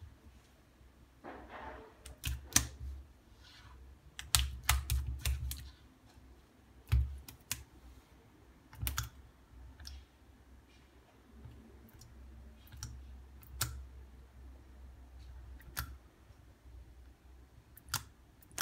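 Irregular sharp taps and clicks of a filleted fish being handled on a bamboo cutting board, in small clusters, with low rumbling bumps between them.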